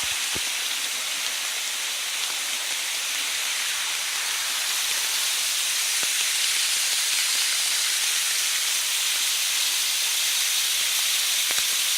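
Steady hiss of heavy rain and running water, growing a little louder about halfway through.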